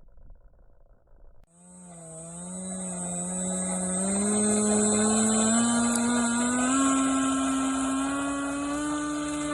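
Electric motor and propeller of an RC model plane starting up about a second and a half in, its whine rising in pitch in steps as the throttle is advanced and growing louder.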